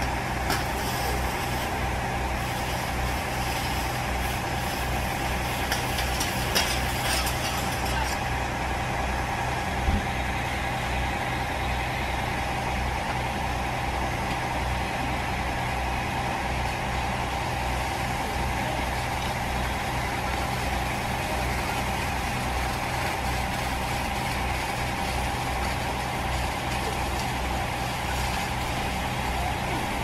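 Fire engine's diesel engine running steadily at the scene, driving its pump, with a low pulsing drone and a steady whine over it.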